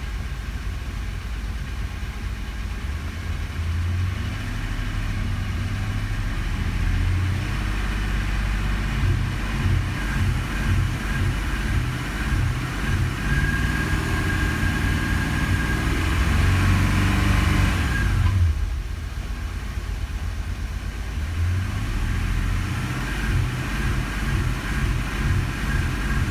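1984 Porsche 928 S V8 engine held off idle, uneven and stumbling: a misfire that shows around 1900 rpm while idle runs fine. About two-thirds of the way through the revs drop back abruptly, then they rise again near the end.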